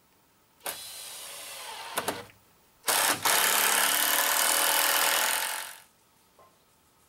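A power tool runs twice: first a short run of about a second and a half, then a louder run of about three seconds that winds down near the end.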